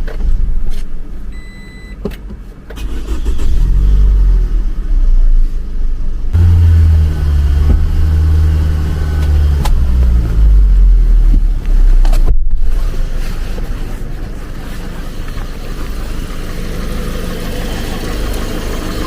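Petrol car engine running, its pitch rising and falling a few times as it is revved. After a brief break about twelve seconds in, it settles to a steadier, quieter idle.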